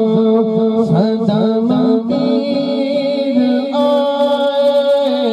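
A man singing a naat, an Islamic devotional song, through a microphone and PA, in a long melodic line with sliding ornaments over a steady held tone.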